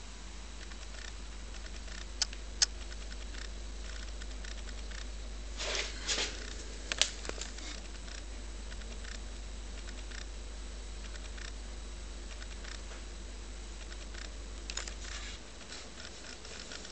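Handling noise from a handheld camera: two sharp clicks, a few brief rustles, and a steady low hum that stops near the end.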